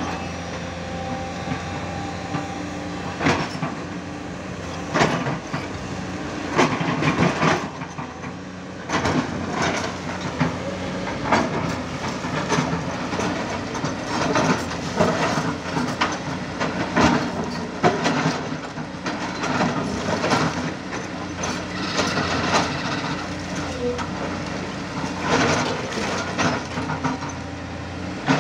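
A Tata Hitachi 200 Super Plus hydraulic excavator's diesel engine runs steadily under digging load. Frequent irregular clanks and scrapes come from the steel bucket and tracks working against rock and loose stone.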